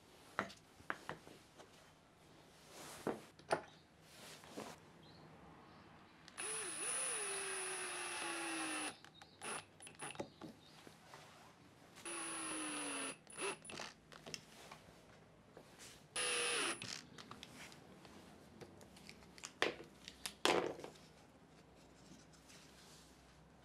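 AEG cordless drill run three times into wooden wheel discs: a longer burst, then two short ones, the motor's pitch falling in each as it slows under load. Between them come sharp wooden knocks and clacks as the discs and boards are handled on the bench, the loudest near the end.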